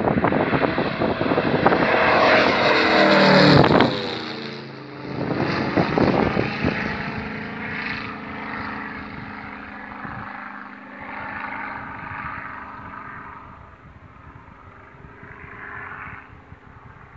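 Falconar SAL Mustang, a scale P-51 Mustang replica light aircraft, making a low fly-by with its piston engine and propeller running. It is loudest about three and a half seconds in, where the engine note drops in pitch as it passes, then fades steadily as it climbs away into the distance.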